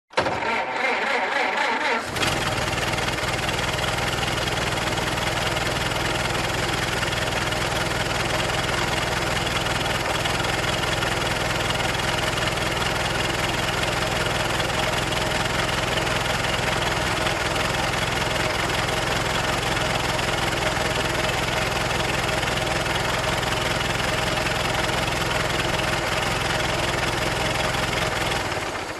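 Old car engine cranked for about two seconds, then catching and running at a steady idle, and shutting off near the end.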